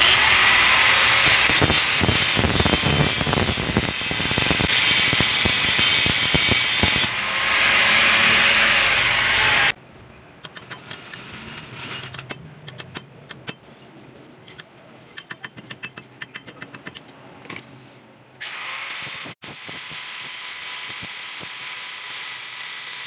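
Angle grinder with a cutting disc grinding into the old bearing on a Toyota Tamaraw FX axle shaft held in a vise, cutting it off rather than heating it so the axle steel is not softened. The grinder stops about ten seconds in, and a run of sharp, irregular hammer-and-chisel taps on the bearing follows. Near the end the grinder runs again, less loud.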